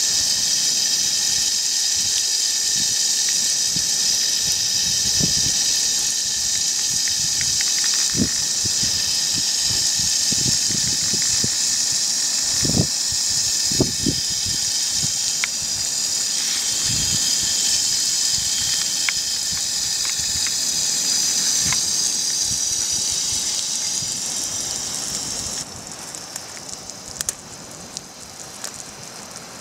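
Steady heavy rain hissing, with a few dull thuds scattered through it. About 26 seconds in it drops to a much quieter patter with scattered drips.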